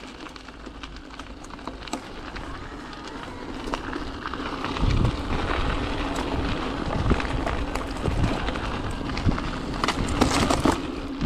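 Electric mountain bike with a Tongsheng TSDZ2 mid-drive motor ridden along a dirt singletrack: tyres on the trail, with the frame and chain rattling and knocking over bumps. A low rumble of wind on the microphone comes in about five seconds in, and a burst of heavy rattling comes near the end.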